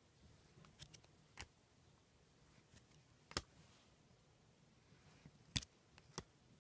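Trading cards being flipped through by hand: a handful of faint, sharp clicks as cards are slid off the stack, with near silence in between.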